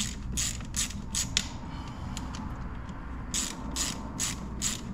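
Hand ratchet wrench clicking in short back-and-forth strokes as it loosens a bolt on the engine's heater-line bracket. A run of strokes comes at about two a second, then a pause of roughly two seconds, then more strokes near the end.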